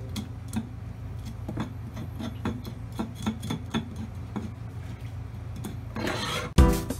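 A kitchen knife tapping and scraping on a cutting board as pufferfish flesh is cut, in irregular small knocks over a low steady hum. Music starts loudly about six and a half seconds in.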